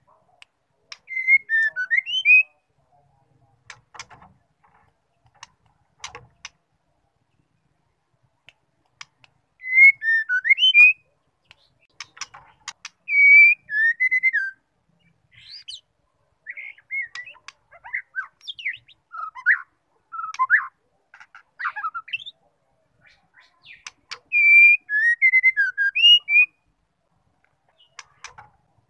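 White-rumped shama singing short whistled phrases that glide up and down, in bursts of a second or two separated by pauses, with a few sharp clicks between phrases.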